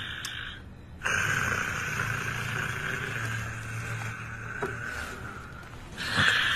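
A person snoring: one long, breathy snore with a low buzz lasts about four seconds, with a short pause between breaths just before it and another snore starting near the end.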